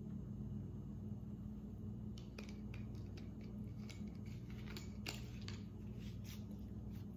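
Scattered light clicks and ticks from a plastic sparkling-water bottle being handled and its screw cap turned, over a low steady hum.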